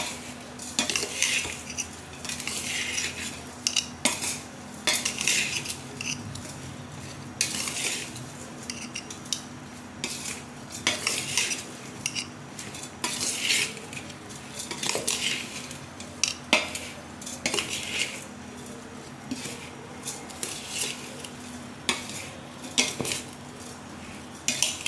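Metal spoon scraping and clattering against a large stainless steel bowl, stirring cut raw mango pieces with coarsely ground dry spices and salt for mango pickle. The mix is still dry, before any oil goes in, and the strokes come quick and irregular.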